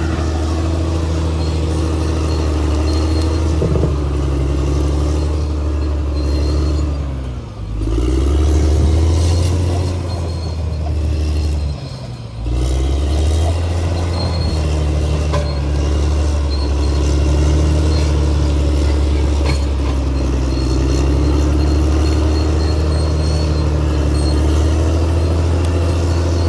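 Caterpillar D6R XL crawler bulldozer's diesel engine running steadily under working load. Its revs dip briefly and recover twice, about seven and twelve seconds in.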